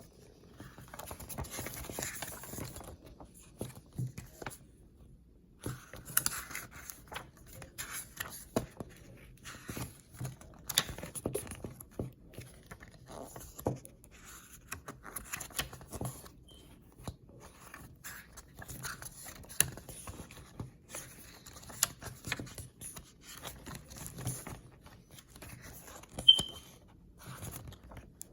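Handling of a CD booklet and case: paper pages rustling and scraping with scattered small clicks, and one sharper click near the end.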